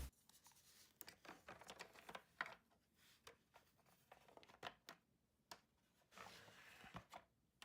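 Near silence, with faint scattered clicks and scrapes of small plastic toy figures being handled in a toy car.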